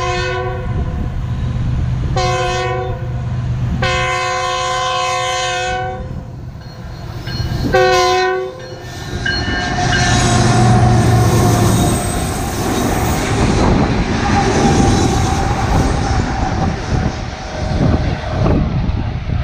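Horn of GE test-train locomotives blowing a short blast about two seconds in, a long one about four seconds in and another short one about eight seconds in. From about nine seconds in, the locomotives run past close by, a loud steady rumble of engines and wheels on the rails.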